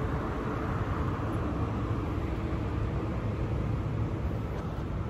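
Wind buffeting a phone's microphone: a steady, fluttering low rumble with a hiss above it.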